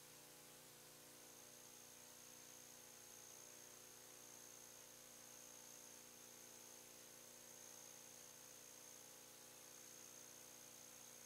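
Near silence: faint tape hiss with a low steady hum and a thin, steady high-pitched whine.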